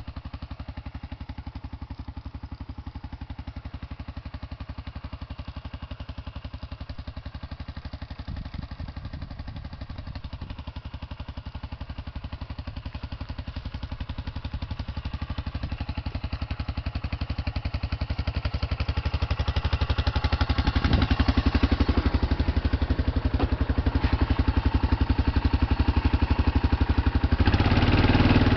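1997 Arctic Cat 500 ATV with a Suzuki engine idling with an even, rapid pulse. It grows louder about halfway through and revs up near the end as the quad moves off through the grass.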